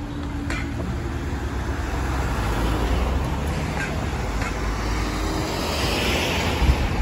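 Road traffic at a level crossing, the queued cars driving over as the barriers go up: a steady low rumble of engines and tyres that builds, with a louder car passing near the end.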